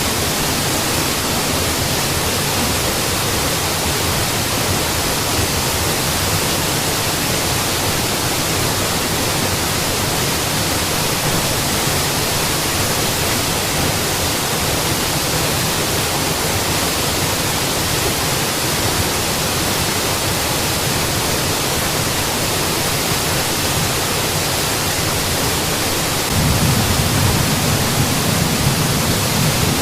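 Mountain waterfall rushing, a steady dense roar of falling water. Near the end the deeper rumble of the water grows suddenly fuller and a little louder.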